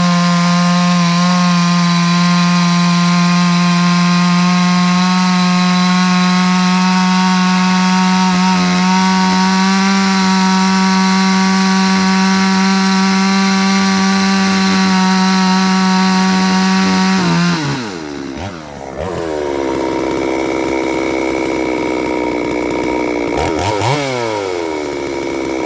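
Petrol chainsaw running at full throttle through a test cut in wood, its chain freshly ground at a non-standard angle. The note holds steady, then about 17 seconds in the throttle is released and the engine winds down to idle. Near the end there is one brief blip of revs.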